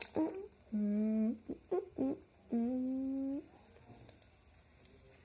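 A boy humming two long, level notes, one early and a longer one in the middle, with a few short clicks between them; the last second or so is nearly quiet.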